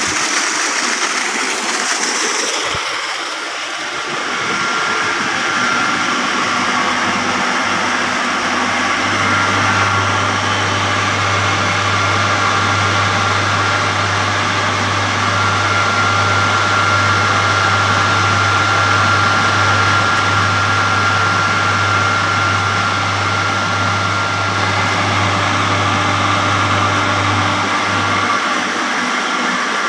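Water gushing from a Marquis 5 hp irrigation pump's 4-inch outlet pipe for the first few seconds. Then the pump's electric motor and centrifugal pump run steadily, with a low electrical hum and a thin steady whine. The low hum fades out near the end.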